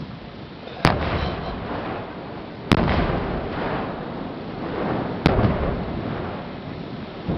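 Fireworks shells bursting at ground level on a rocky shore: three sharp booms, each trailing off in a long rumble, with crackling sparks between.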